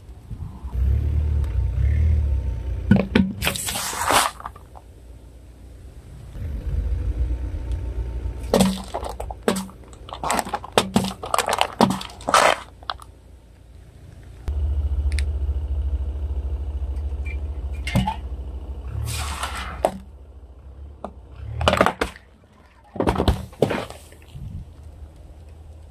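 Car tyre rolling over full aluminium Pepsi cans, the cans cracking and bursting in several clusters of sharp crunches with spraying soda, over the low rumble of the slowly moving car.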